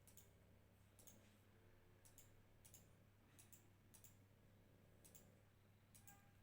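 Near silence with about ten faint, sharp high-pitched clicks at irregular intervals, over a steady low hum.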